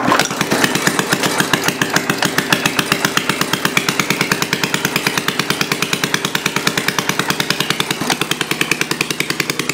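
Old single-cylinder Briggs & Stratton four-stroke lawnmower engine, freshly rebuilt with its carburetor not yet adjusted, catching on a rope pull and running with rapid, even firing pulses. About eight seconds in, the beat turns slightly slower and rougher.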